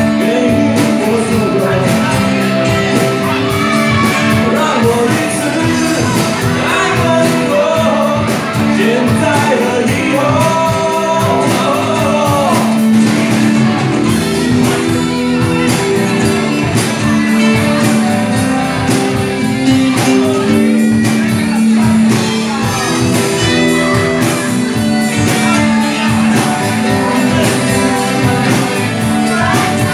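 Live band performance of a pop-rock song: singing over sustained guitar and band chords, with the vocal heard mostly in the first half while the band plays on.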